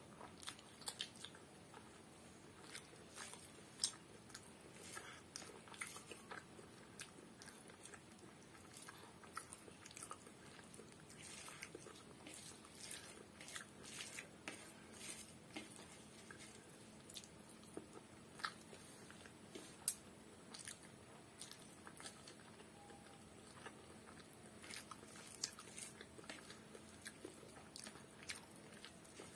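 Close-miked chewing and mouth sounds of a person eating rice and vegetable curries by hand: faint, scattered smacks and clicks with the odd light crunch.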